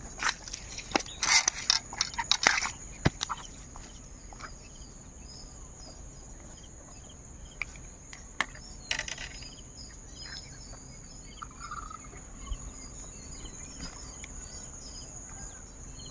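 Crickets chirring in a steady high drone, with small repeated chirps over it. A quick run of sharp knocks and slaps in the first few seconds, and another brief burst about nine seconds in, stand out above it.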